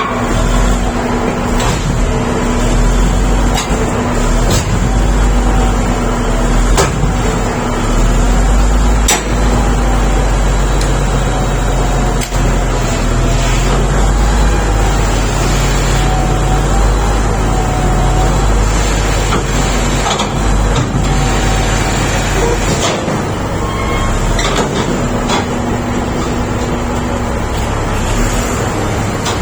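SD32 bulldozer's diesel engine running steadily under a heavy low rumble, with sharp knocks now and then.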